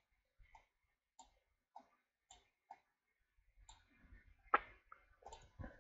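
Faint clicks of a computer mouse and keyboard, coming one at a time roughly every half second, with a louder click about four and a half seconds in and a quick few near the end.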